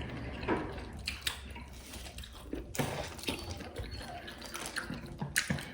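Faint wet eating sounds from a seafood meal: scattered small clicks, smacks and squelches as crab and other seafood are handled and eaten.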